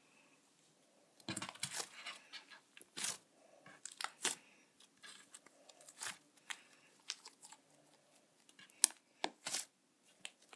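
Slime being squished and stretched by hand, giving irregular sticky crackles and pops that start about a second in.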